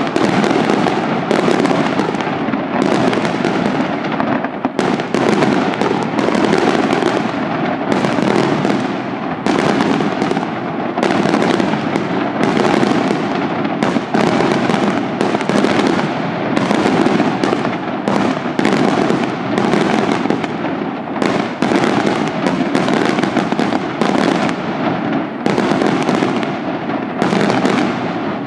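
Daytime aerial fireworks going off in a dense, unbroken barrage of bangs and crackling, with sharper reports about once a second.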